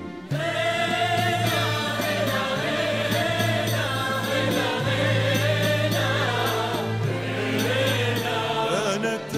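A choir singing long, wavering held notes over a steady low bass, in a song from an Arabic musical play.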